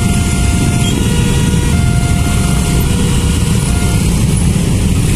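Many small motorcycle engines running together in a steady, loud low rumble, with faint short tones coming and going over it.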